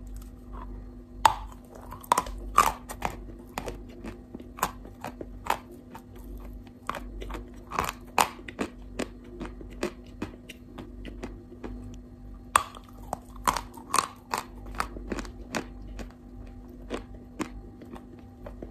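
Close-up crunching and chewing of a block of chalk: many sharp, irregular bites and crunches, with chewing between them over a faint steady hum.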